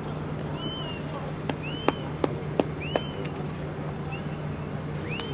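Steady low hum of outdoor city background. Over it comes a short, high, rising chirp repeated about once a second, and a handful of sharp clicks in the middle.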